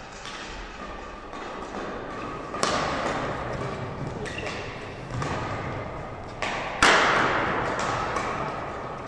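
Badminton rally: rackets hitting the shuttlecock back and forth in a large hall, with sharp hits echoing off the walls. Two hits stand out as much louder, one near three seconds in and one about seven seconds in.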